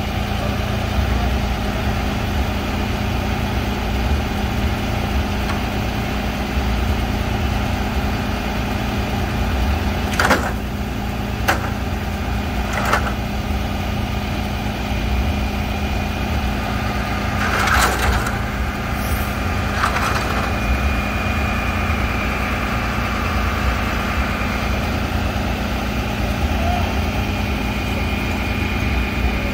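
Heavy truck engine idling steadily with a low hum. Several sharp knocks and clanks come in the middle stretch.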